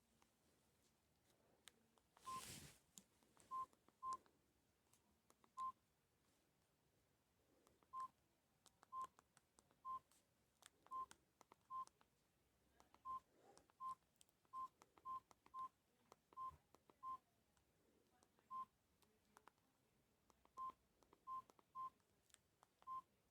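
Samsung E1200 keypad beeping: short single beeps, all at the same pitch, about twenty at irregular intervals as its keys are pressed, each with a faint button click. A brief rustle about two seconds in.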